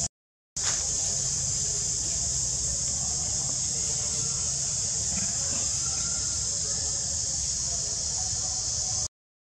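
Insects droning steadily in a high, even chorus over a low background rumble. The sound cuts out for about half a second right at the start and again near the end.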